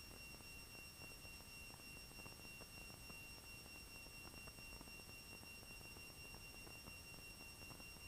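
Near silence: faint hiss with a thin, steady high-pitched electronic whine.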